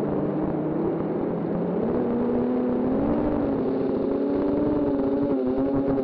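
Multirotor drone's electric motors and propellers buzzing close to the onboard microphone, several tones drifting slowly up and down in pitch as the motor speeds change in flight.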